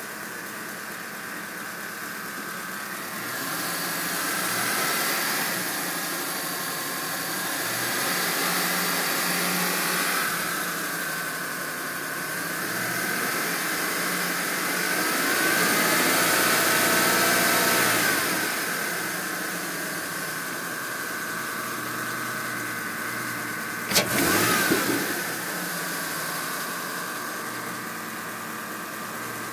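2011 Camaro SS's L99 6.2-litre V8 running and revved up and back down a few times, with a steady higher-pitched whine over the engine note that follows the revs: a strange noise the owner wonders may come from the alternator. A sharp click sounds once near the end.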